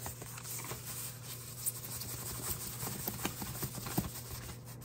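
White paper wrapping crinkling and rustling as it is pulled off a beard trimmer: a steady run of small crackles with a few sharper ones.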